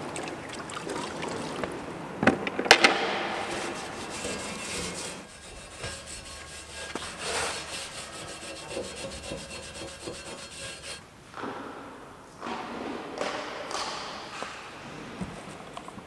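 Hand-work noises: irregular scraping and rubbing with knocks, the loudest a few sharp clacks about two seconds in.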